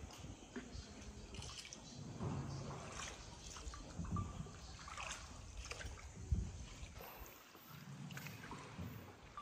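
Faint water trickling and splashing in a cave river, with a few soft low knocks.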